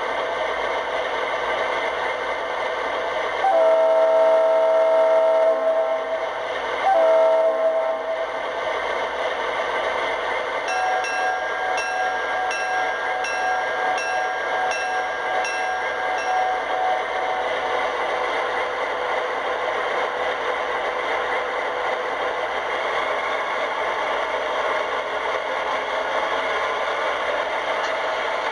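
An MTH Premier O scale BNSF Dash 8 model locomotive's onboard sound system plays a narrow-nose Dash 8 diesel sound file: a steady diesel engine sound throughout, two horn blasts, a long one then a short one, and then a bell ringing evenly for about six seconds.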